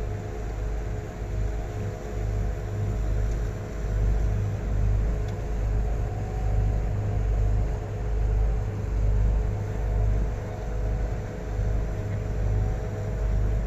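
Low rumble that swells and fades every second or two under a steady drone, typical of a river cruise boat's engine running under way.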